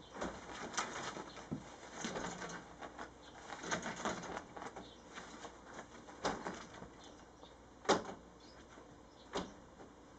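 A prairie dog moving about under blankets, with irregular rustling and scrabbling of cloth. A few sharper sounds stand out, the loudest about eight seconds in.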